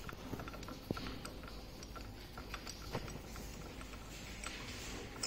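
Light, irregular metallic clicks and taps of a bearing puller being fitted by hand around the rotor-shaft bearing of a Tesla Model S rear drive motor, the sharpest tick about three seconds in.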